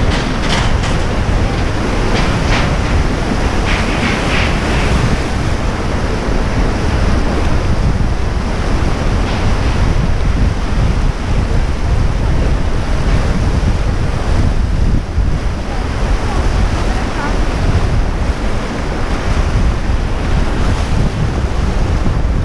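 Whitewater river rapids rushing and churning around an inflatable raft, with wind buffeting the microphone.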